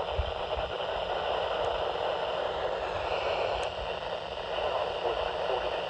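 Weather radio receiver hissing with steady static, a weak signal with no voice coming through.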